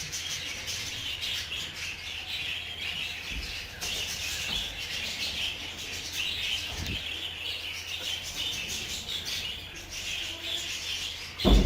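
Budgerigars chirping and chattering, a continuous high twittering.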